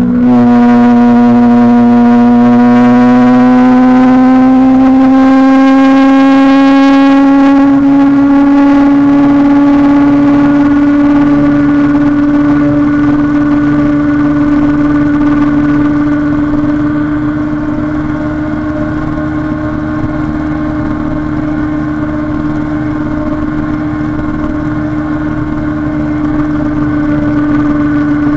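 Kawasaki Ninja 636 inline-four engine running at high revs under way. Its pitch dips at a gearshift right at the start, then climbs slowly and steadily, and it gets a little quieter past the halfway point.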